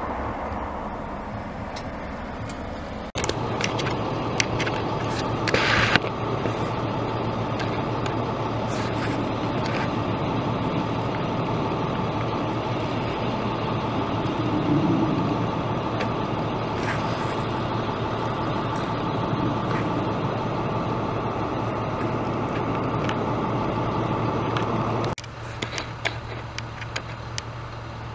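An engine running steadily with a constant low hum and scattered clicks. It comes in abruptly about three seconds in and cuts off abruptly near the end.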